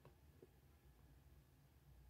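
Near silence: room tone with a faint low hum, and two faint ticks, one at the start and one about half a second in.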